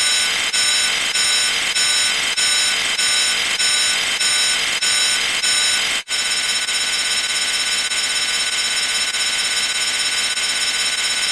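Loud electronic alarm beeping: high tones pulsing at an even rhythm, a little under two beeps a second. About six seconds in it cuts abruptly to a steadier high-pitched alarm tone.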